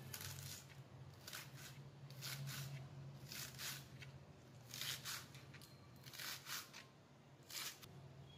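Small kitchen knife slicing through spring onions on a plastic cutting board: a string of faint, crisp, irregular cuts, some in quick pairs.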